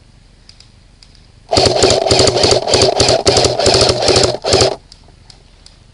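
Airsoft electric gun firing on full auto in one long burst of about three seconds, starting about a second and a half in: a rapid mechanical rattle of shots, with a couple of very brief breaks near the end.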